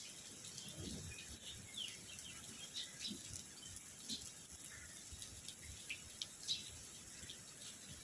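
Steady hiss of heavy rain falling over a flooded canal and its trees, with scattered short bird chirps and a few soft low thumps.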